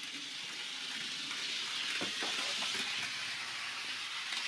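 Small electric motor of a model rail-road bus running at high speed, a steady high whirring hiss that swells and then eases a little.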